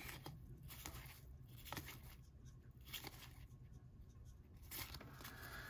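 Very faint handling of a stack of 1991 Upper Deck baseball cards: card stock sliding and flicking against card stock as cards are moved from front to back, with a few soft ticks.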